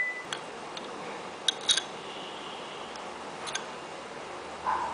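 A few light clicks and taps of a utensil against a bowl, four in all, over a steady low hiss.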